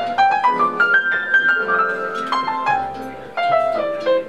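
Jazz piano playing a climbing run of single notes that peaks about a second in, holds, then steps back down. Low bass notes sound under it in the second half.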